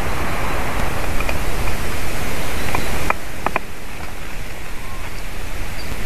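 Steady rushing hiss of wind on the nest-camera microphone, easing slightly after about three and a half seconds, with a few short sharp taps about one, three and three and a half seconds in.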